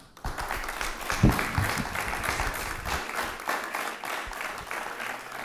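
Audience applauding: steady clapping that starts just after the proclamation ends and begins to thin out near the end, with a couple of low thumps about a second in.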